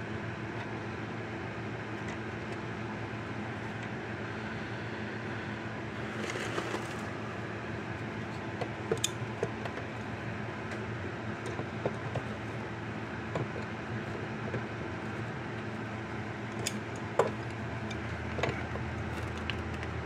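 Small sharp clicks and taps of a steel nut, bolt and pliers being handled against a plastic case, scattered through the second half, over a steady background hum. A short rustle about six seconds in.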